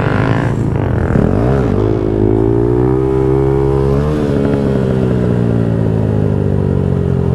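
Honda Grom's 125cc single-cylinder engine running under throttle as the bike accelerates: the pitch dips once, climbs steadily, jumps briefly about four seconds in, then falls slowly as the rider eases off.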